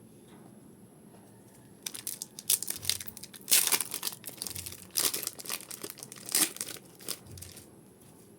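Pokémon card booster pack wrapper being torn open and crinkled by hand, a run of crackling rustles that starts about two seconds in and stops shortly before the end.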